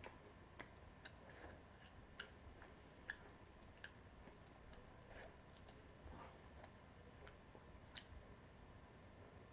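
Faint eating sounds of someone eating tteokbokki: scattered sharp mouth clicks, about one every second or so, with soft chewing.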